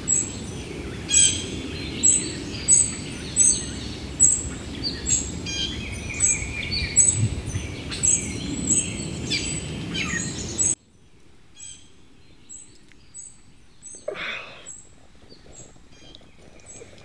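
Wild birds chirping and singing over a steady outdoor ambience, one bird repeating a high chirp about every three-quarters of a second. About eleven seconds in the sound cuts off abruptly to a much quieter room, with one brief soft noise a few seconds later.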